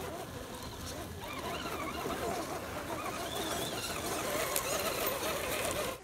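Electric 1/10-scale RC rock crawler's motor and gears whining as it crawls over loose dirt and gravel, the pitch wavering up and down with the throttle. It gets a little louder in the second half.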